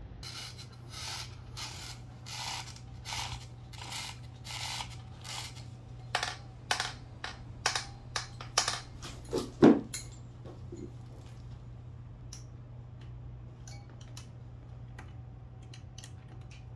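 Hand work on a stripped Honda Benly 110 scooter engine: a run of even scraping strokes, about two a second, then sharp metal clinks and knocks as steel rods and parts are handled, the loudest just before ten seconds in, then a few faint ticks over a steady low hum.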